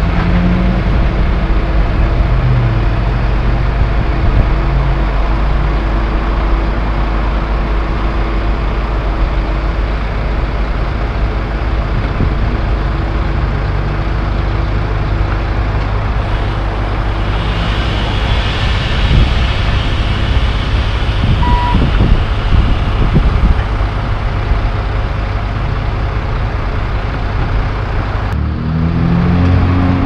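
Heavy diesel engine running steadily at low revs, with a hiss in the middle and a single short beep about two-thirds of the way in.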